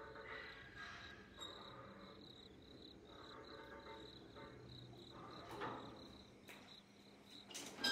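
Crickets chirping steadily, with a few faint clicks near the end.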